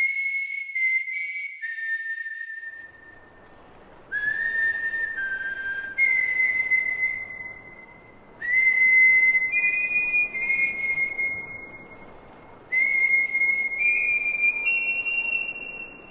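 High whistled tones in five phrases of long held notes. Each note starts with a short upward slide, and some phrases step to a higher or lower note. A faint steady hiss sits underneath from about three seconds in.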